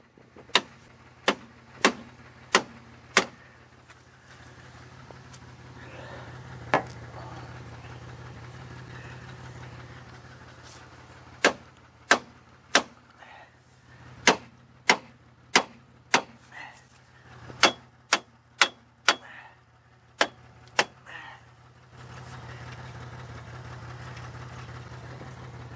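Sledgehammer blows on a seized brake drum, sharp metallic ringing strikes about two every second ending a few seconds in, one more strike a few seconds later, then another long run of strikes, about twenty blows in all, struck to free brake shoes locked to the drum. A car engine idles steadily underneath.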